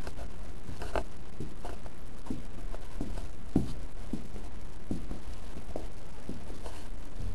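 Strong wind buffeting the microphone as a steady low rumble, with footsteps about twice a second.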